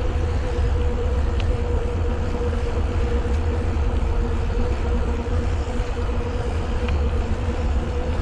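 Riding noise from a mountain bike on a paved path: a steady low rumble of tyres and wind on the microphone, with a steady hum throughout.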